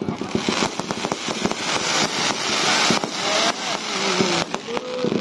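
Display fireworks going off: a quick series of pops and bangs over dense crackling, the crackle thickest in the first half.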